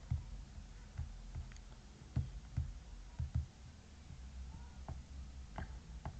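Faint computer mouse clicks, about eight spread unevenly over several seconds, as the mouse is clicked through a menu and the code is scrolled, over a low steady hum.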